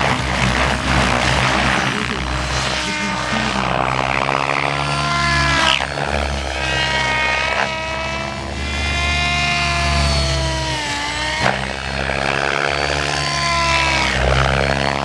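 Compass Chronos 700 RC helicopter flying 3D aerobatics. Its rotor and motor whine swings up and down in pitch as it swoops and flips, over a steady rush of rotor noise.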